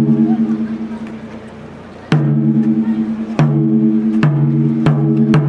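Wadaiko (Japanese taiko drums) struck with single heavy beats. Each beat rings with a deep, slowly decaying tone, and the beats come faster and faster in the second half.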